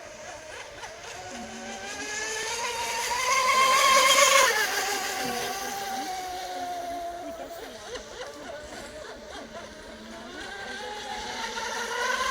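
3D-printed RC race boat's motor whining as the boat speeds past: the whine rises in pitch and grows louder, drops sharply in pitch as it passes about four seconds in, then fades away. Near the end it rises again as the boat comes back.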